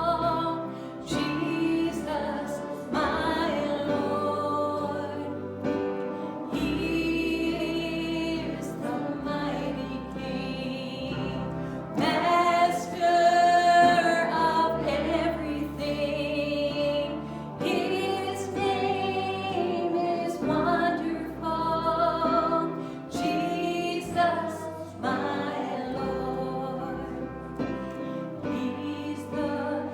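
Church worship music: a congregation and worship team singing a song together, with instrumental accompaniment holding steady bass notes under the voices.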